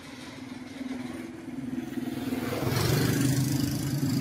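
A motor engine drawing closer, growing steadily louder until about three seconds in and then holding at full strength.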